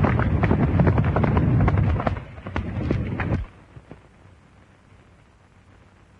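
A horse galloping off, its hoofbeats loud and close over a heavy rumble. They cut off abruptly about three and a half seconds in, leaving only faint, scattered hoof knocks.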